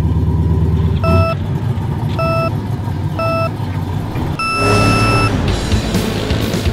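Off-road go-kart engines running under three short electronic beeps about a second apart, then one longer, higher beep: a race-start countdown. After the long beep the engine noise rises as the karts pull away.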